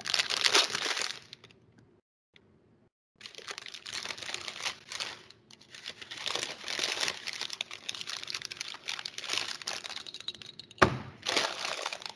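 Brown paper bag being crumpled and crushed by hand: a continuous crinkling and crackling that breaks off for about a second a couple of seconds in. Near the end comes one sharp knock, the loudest sound.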